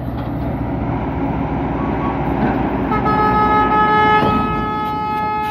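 A heavy truck engine rumbles. About three seconds in, a vehicle horn sounds one long, steady blast of over two seconds.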